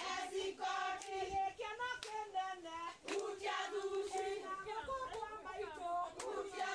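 A group of women singing together, holding long wavering notes, with scattered hand claps.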